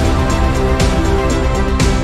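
Background music with a steady beat, with a sharp hit about once a second over held notes and a strong bass.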